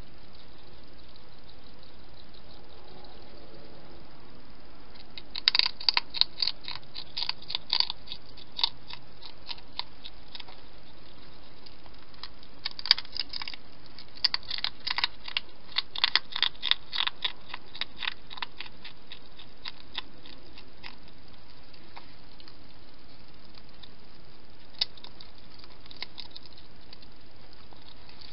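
Hedgehog eating dry food from a bowl: two long runs of quick, sharp crunches with a pause between, then a few single crunches near the end.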